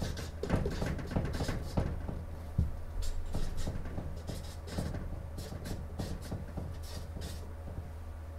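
Dry-erase marker writing on a whiteboard: a quick run of short strokes, busiest in the first two seconds, over a steady low room hum.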